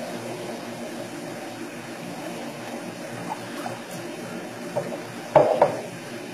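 Steady low mechanical hum with running water, broken by two sharp knocks in quick succession a little after five seconds in.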